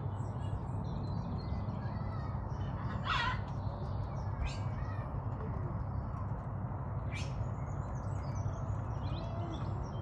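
Blue-throated macaws giving harsh squawks: three short calls, about three, four and a half, and seven seconds in, the first the loudest. Faint high chirps and a steady low background rumble run underneath.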